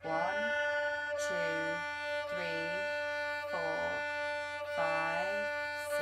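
Violin's open D string bowed in even, steady strokes, one sustained note. A woman's voice counts the beats along with it about once a second.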